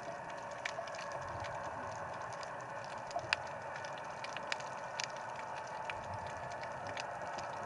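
Underwater ambience picked up through a camera housing: a steady hiss with scattered, irregular sharp clicks and crackles.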